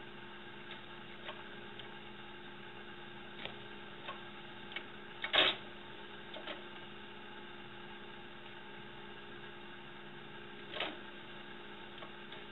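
Steady electrical hum with a few light clicks and one louder knock about five seconds in.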